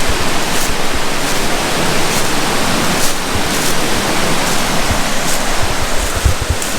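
Creek swollen with snowmelt, rushing water as a loud, steady hiss.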